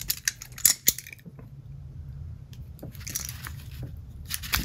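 A knife being handled and a small plastic packet being cut open with it: a few light clicks in the first second, then plastic crinkling and sharp crackles from the blade near the end.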